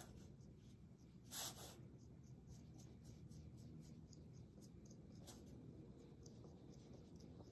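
A pointed clay tool scoring crosshatch lines into a soft clay coil: faint, quick scratches, with one louder short scrape about a second and a half in.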